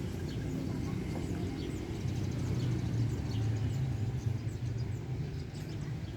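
Road traffic running past at the roadside: a steady low engine and tyre rumble that swells in the middle as a vehicle passes close, with faint high ticks over it.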